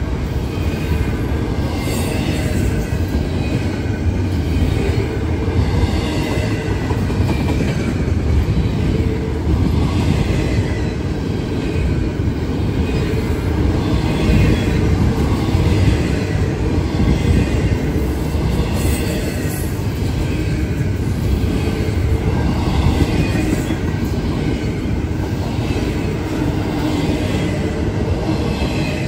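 Double-stack intermodal freight train passing: a steady, loud rumble and clatter of the container well cars' wheels on the rails.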